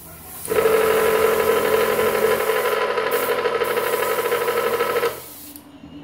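Hao Sheng HS217 airbrush compressor's piston motor running with a steady, loud hum and a hiss of air, starting about half a second in and cutting off about five seconds in, the hiss trailing on briefly. It is not a silent-type compressor.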